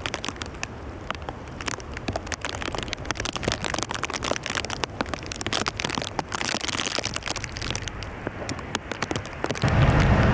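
Rain falling, heard as a dense, irregular run of small sharp ticks of drops close to the microphone over a low background rumble. Near the end a much louder low roar sets in suddenly.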